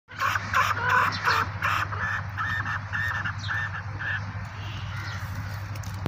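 A chukar partridge calling a rapid series of about ten harsh, repeated chuk notes that fade and stop about four seconds in, over a steady low hum.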